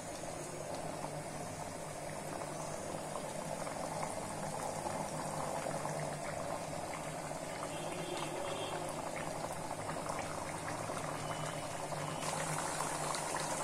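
Thick beef and chana dal curry boiling in a pan on the stove, bubbling and popping steadily.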